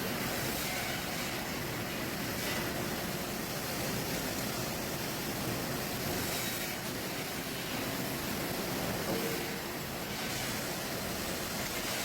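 Sawmill head rig running: the log carriage carrying a log through the head saw, a steady, noisy rumble with no clear pitch.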